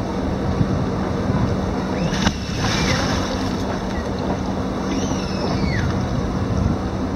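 Wind on the microphone and river water lapping, over a steady low hum. Two short calls that slide up and down in pitch, about two seconds in and about five seconds in.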